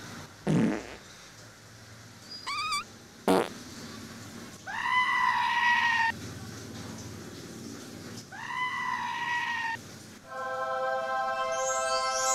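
Comic sound effects from a movie soundtrack playing through a television speaker. There is a short falling swoop, then a sharp click, then two long high-pitched calls of about a second and a half each, and near the end a held tone of several steady notes.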